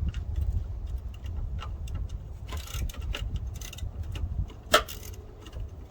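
Scattered small metallic clicks and clinks of hand tools and bolts during brake work, with one sharp, louder click just under five seconds in, over a low rumble of wind on the microphone.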